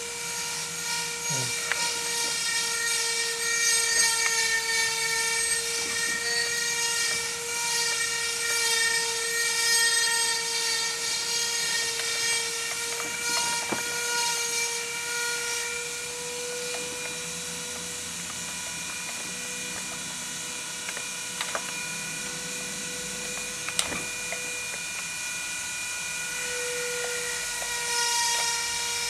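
An electric motor running steadily with a high whine, with a few light clicks as parts are handled.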